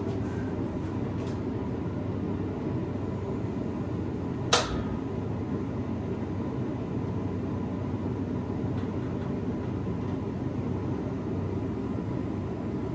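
A fan running steadily with a low rumble and a faint steady whine. One sharp click comes about four and a half seconds in.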